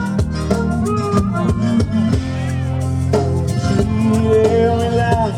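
Live band music: drum kit, guitar and a shaker playing an instrumental passage with a steady beat.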